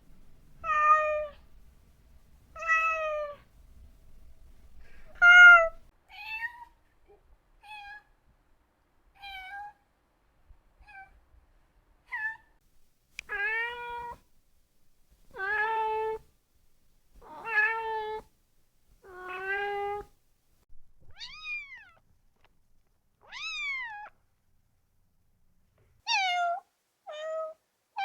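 Domestic cat meowing, about sixteen separate meows with short pauses between them. The calls vary in pitch and loudness: a run of lower, stronger meows in the middle, and two high calls that rise and fall near the end.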